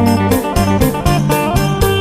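Isan phin, the northeastern Thai plucked lute, playing an instrumental tune over a bass line and a steady beat of about four strikes a second.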